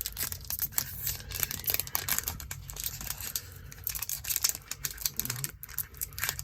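Foil Pokémon booster pack wrapper crinkling and crackling in quick irregular bursts as it is handled and pulled at to open it.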